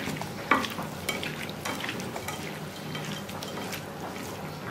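Raw prawns being squeezed and tossed by hand in a glass bowl to coat them with turmeric and salt, giving irregular wet squelches and clicks, the sharpest about half a second in.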